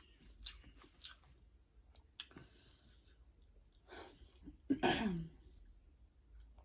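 Close-up mouth sounds of a person eating: wet chewing and small clicks. About five seconds in comes a short hummed 'mm' that falls in pitch.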